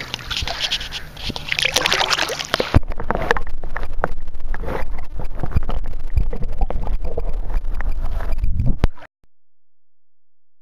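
Water splashing and sloshing as a bass about 8 pounds is lowered into the water to be released. A sharp knock comes about three seconds in, after which the sound turns dull and muffled with a low rumble, until it cuts off to silence near the end.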